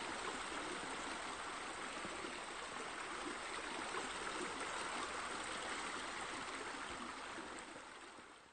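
Steady rush of running, splashing water, like a fountain or water feature spilling into a pool, fading out over the last second.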